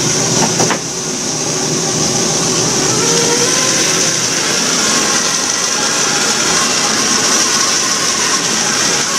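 Lobster boat's engine running steadily, with one sharp knock under a second in.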